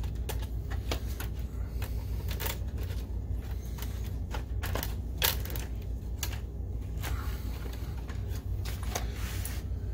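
Handling noise from inside an opened projector: irregular light clicks and rattles as gloved hands work the wire connectors under the main board and its sheet-metal shield, with a few sharper clicks near the middle, over a steady low hum.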